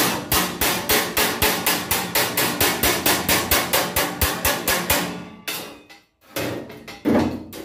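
Small hand hammer rapidly tapping along the bent edge of a cold-rolled steel sheet panel, about five blows a second, working the flange into shape. The tapping stops about five seconds in, and a louder knock follows near the end.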